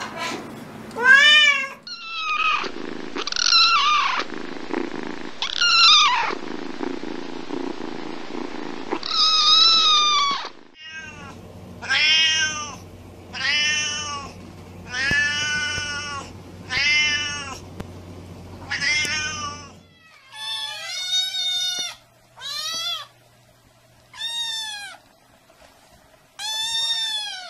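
Domestic cats and kittens meowing, several different animals one after another, each meow a drawn-out call that rises and falls in pitch. The last few meows are shorter and higher, from a kitten.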